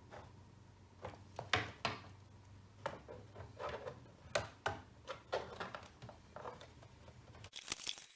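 Irregular small clicks, knocks and rustles of hands handling computer cables and a desktop PC case.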